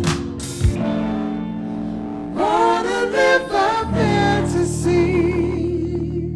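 Live band playing: electric guitar, bass, keyboard and voices. A sharp hit lands under a second in, and singing comes in about two and a half seconds in, with held, wavering notes over a sustained bass line.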